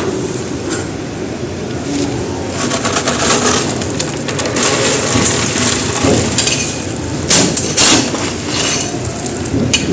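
Dry, gritty white concrete being crumbled in a tub: continuous crunching and crackling, with two louder crunches about seven and eight seconds in.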